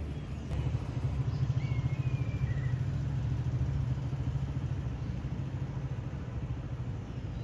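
Vehicle engine idling with a steady low throbbing rumble that grows louder about half a second in.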